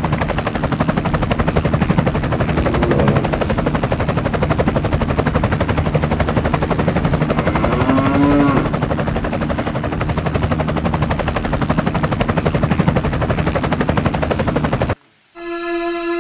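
An engine running steadily with a fast, even chatter. It cuts off abruptly near the end and a held musical note begins.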